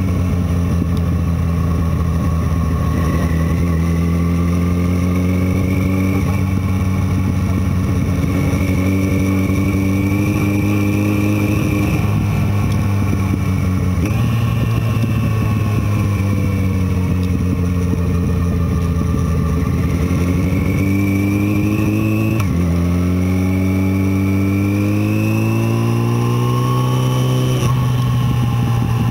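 Motorcycle engine running under way, its pitch climbing and sinking slowly as the throttle opens and closes through the curves. It steps sharply in pitch about halfway through and again about three-quarters of the way through.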